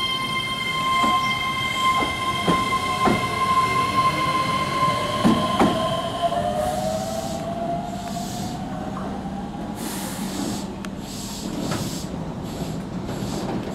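Keihan electric trains at a station platform. One pulls out with wheels knocking over rail joints and a steady high-pitched wheel squeal, and its motor whine rises in pitch as it speeds up. Another train rolls in alongside and comes to a stop.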